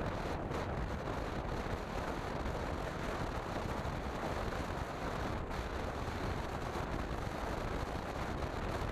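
Steady wind rushing over the microphone of a camera riding on a Kawasaki Ninja 400 at road speed, mixed with the motorcycle's running noise.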